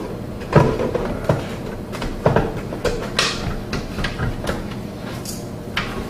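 Scattered knocks and clunks with a brief rustle, as the water heater timer box is handled and fitted against the wall.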